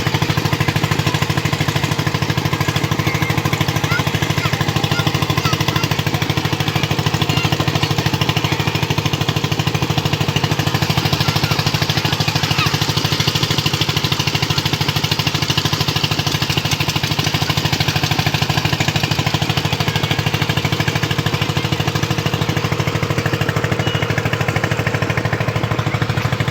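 An engine running steadily at an even speed, with a fast, even low pulse throughout.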